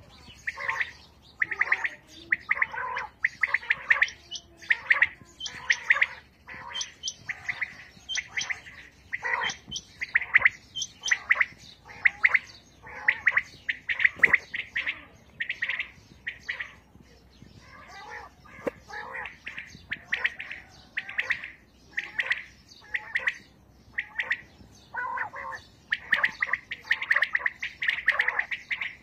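Several caged quails calling over and over. Groups of short, sharp repeated notes follow one another with brief gaps, and the birds overlap.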